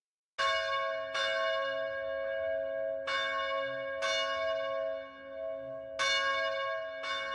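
A church bell tolling: about six strikes at uneven intervals, starting about half a second in, each strike ringing on under the next.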